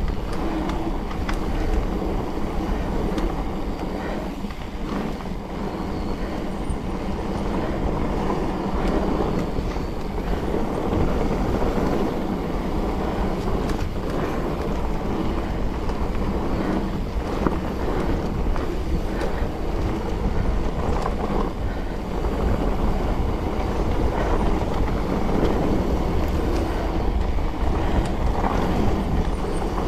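Mountain bike riding a trail: a steady rumble of tyres over rough ground and wind on the microphone, with scattered rattles and clicks from the bike.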